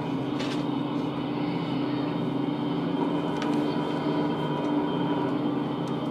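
Steady low hum inside a car's cabin, with the car's engine running.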